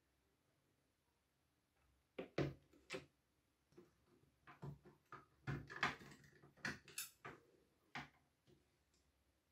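Sharp plastic clicks and knocks as the two halves of a toy sewing machine's plastic housing are handled and pulled apart. The clicks come in an irregular scatter from about two seconds in to near the end.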